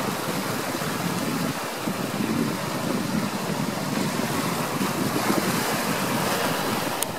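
Steady rushing noise of ocean surf mixed with wind buffeting the microphone, rising and falling a little without any clear breaks.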